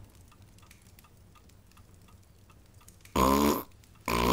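A young girl makes two short, low, throaty noises with her voice, the first about three seconds in and the second near the end. They are a silly sound made in place of whistling. Faint, regular ticking comes before them.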